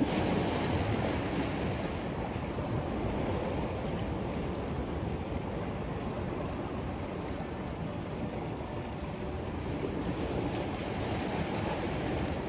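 Sea surf washing against a rocky shore, mixed with wind buffeting the microphone: a steady noise that swells and eases slightly.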